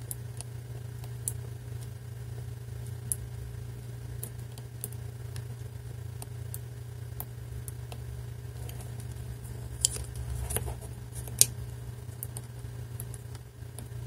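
A brass combination padlock's number dial clicks through its detents as it is turned with a knife blade pressed into its side, with no drop of the blade into a notch being found. The clicks are sparse and irregular, about one a second, with two sharper clicks near the end, over a steady low hum.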